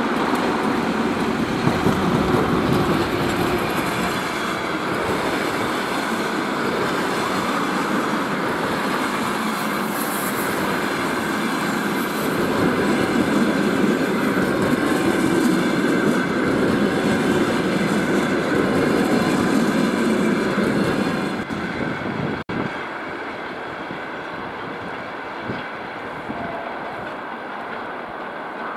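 Passenger train hauled by a VL80T electric locomotive rolling past, its coach wheels making a steady rumble on the rails. The sound drops to a quieter, more distant rumble about three-quarters of the way through as the train moves away.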